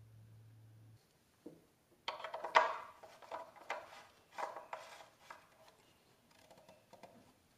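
Plastic oil filler cap on a 2013 Honda Fit's engine being handled and screwed back on: a run of clicks, taps and rubbing, loudest about two and a half seconds in, then a few light ticks. A faint low hum cuts off about a second in.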